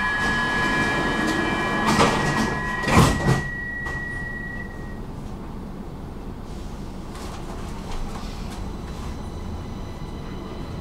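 Stockholm metro train at a station: a steady high warning tone sounds as the sliding doors close, and the doors shut with a knock about three seconds in. The train then pulls away with a low, steady running noise.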